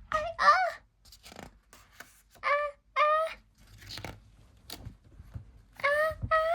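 A woman's voice acting out a sneeze wind-up: three pairs of short, high "ah" gasps, a couple of seconds apart, some rising in pitch as they build toward the "choo". Faint rustles and taps between them.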